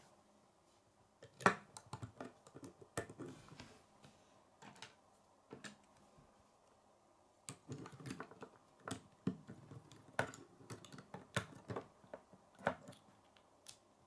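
Plastic K'nex rods and connectors clicking and snapping together as they are handled and fitted. A sharp snap comes about a second and a half in, then a quieter lull in the middle, then a busier run of clicks.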